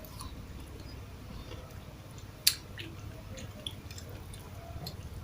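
Mouth sounds of someone chewing a meal of rice and canned sardines, with small scattered clicks and one sharp click about halfway through, over a steady low hum.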